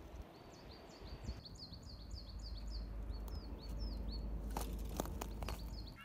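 A small bird singing a run of short, high notes that each fall in pitch, about three a second for the first four seconds or so, with a couple more near the end, over a low rumble.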